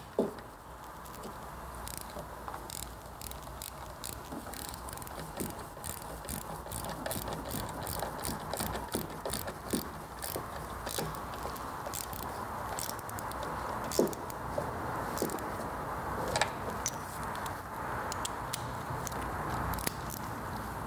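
Quarter-inch-drive ratchet with an 11 mm socket clicking in short, irregular runs as it tightens the carburetor's mounting nuts, over a steady background hiss. One sharper click stands out about fourteen seconds in.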